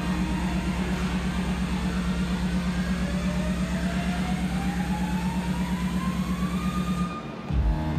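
Electronic dance music at a build-up: a rapidly pulsing bass note under a rising sweep, breaking off briefly near the end before a heavier beat comes back in.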